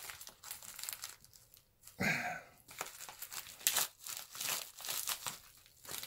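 A mailing envelope being slit open with a knife and handled: its paper crinkles and rustles in short, irregular scrapes as the blade cuts along it.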